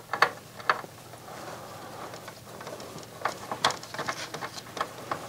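A small screw being put back in position with a screwdriver in a MiniDisc deck's mechanism: scattered light clicks and ticks with some faint scraping, the clicks bunching together in the second half.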